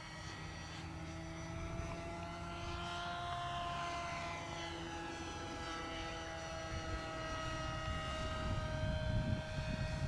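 Radio-controlled model airplane's motor and propeller running steadily in flight, a high whine whose pitch sinks slightly as it passes. A low rumble grows near the end.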